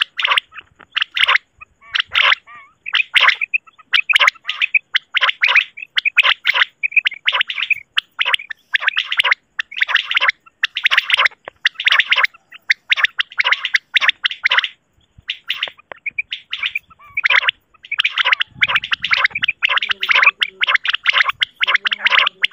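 Common quail (batair) calls from a hunting lure recording, played to draw quail into nets: rapid runs of short, high notes repeated almost without pause, with only brief breaks.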